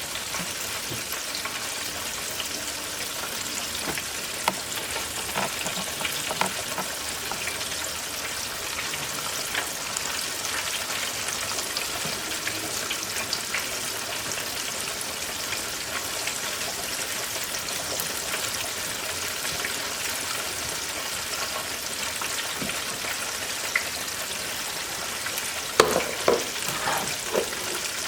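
Breaded chicken frying in hot oil: a steady sizzle, with a few short knocks near the end.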